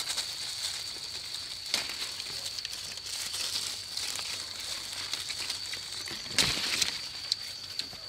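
Dry leaves and twigs crinkling and crackling in irregular bursts, with a louder crunch about six and a half seconds in, over a steady high-pitched hum.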